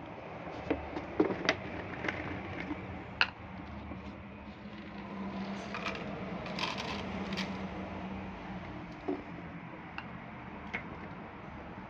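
Dry cat kibble poured from a plastic jar, clicking and rattling into a plastic bowl, with a dense run of clicks just past the middle and scattered single clicks before and after. A steady low hum runs underneath.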